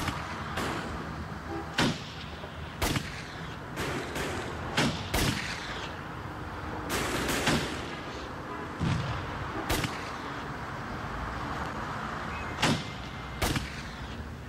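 Scattered gunshots, about a dozen sharp reports at irregular intervals, each with a short echo, over a steady background of noise.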